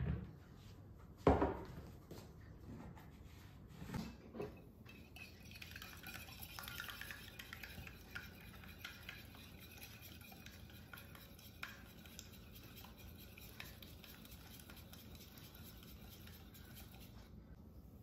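A few knocks of containers on the worktop near the start, then a wire whisk stirring eggs and tahini in a glass bowl, the metal wires scraping and clinking against the glass.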